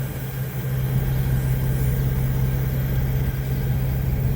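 A vehicle engine idling steadily: a constant low hum with a rough rumble beneath it.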